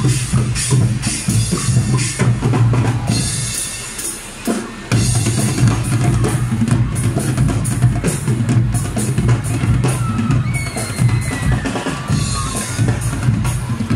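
Guggenmusik carnival band playing, brass with sousaphones carrying the low line over heavy drums and bass drum. The music drops off briefly about four seconds in, then comes back in full.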